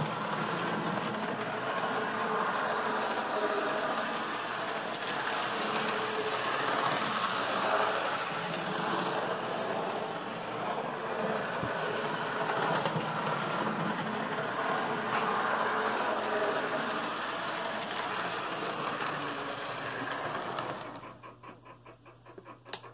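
Model trains running on a layout: a steady whirring, rattling noise with a faint wavering hum. About two seconds before the end it drops away to a quieter, fast, even ticking as the HO-scale Roco steam locomotive passes close by.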